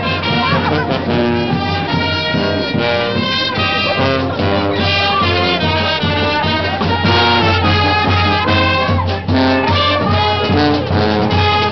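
Brass band music, with trumpets and trombones playing over a steady bass.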